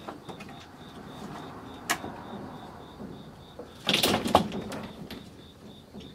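A cat's paws scrabbling and knocking on a narrow wooden ledge high on a wall: a single sharp knock about two seconds in, then a burst of rattling, thumping knocks about four seconds in as the cat scrambles along.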